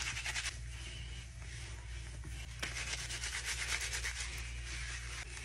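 Hands rubbing clarifying shampoo lather through wet hair: a fast, wet scrubbing hiss, coming in two bouts, the first ending about half a second in and the second starting about two and a half seconds in.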